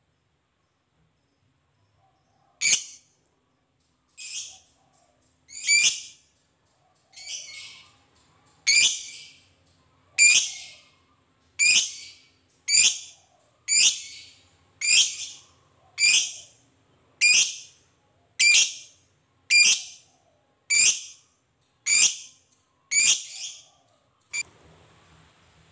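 Caged lovebird giving a string of about seventeen short, high-pitched calls, starting about three seconds in and coming a little more than once a second.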